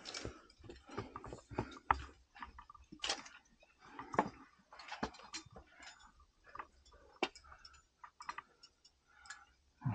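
Scattered, irregular clicks and short scrapes of a climber's hands, shoes and gear against granite while climbing.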